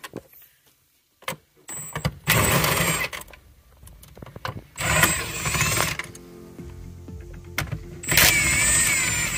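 Cordless power driver with a 12 mm socket and extension spinning in three short runs of about a second each, with a motor whine, backing out the shifter-box bolts.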